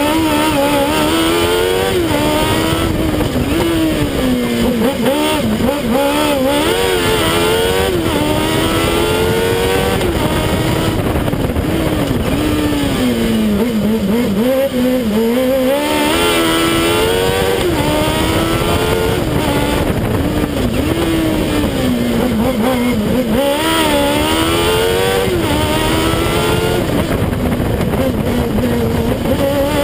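The Fiat 500 race car's Kawasaki ZX-12R inline-four motorcycle engine is driven hard, heard from a camera mounted on the car's side. Its pitch climbs again and again as it revs up through the gears, then drops under braking into the bends.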